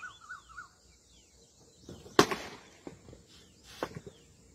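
A single sharp, loud crack about two seconds in, followed by two fainter knocks. Before it, a bird calls in quick repeated warbling notes that stop within the first second.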